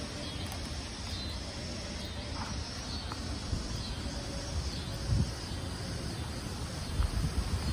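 Gusty storm wind rushing through leafy trees and buffeting the microphone in low rumbles, which grow stronger near the end.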